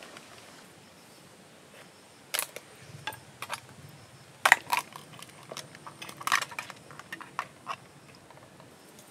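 River crab being cleaned by hand and with a knife: an irregular run of sharp clicks and snaps of shell, starting about two seconds in and loudest around four and a half and six seconds in.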